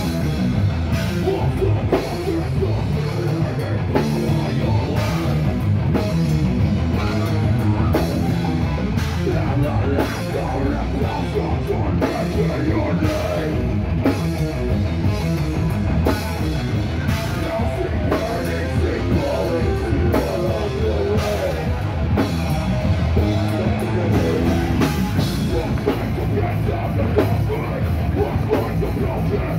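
Heavy metal band playing live: distorted electric guitars over pounding drums, steady and loud.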